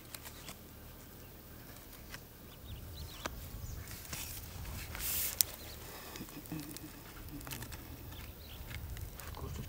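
Quiet outdoor ambience with a low rumble and faint bird chirps, broken by a brief rustle and a sharp click about five seconds in.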